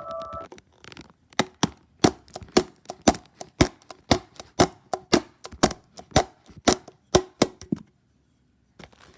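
A rapid series of sharp knocks, a few a second and each with a short ring, stopping abruptly about eight seconds in: a plastic Gatorade bottle being struck over and over.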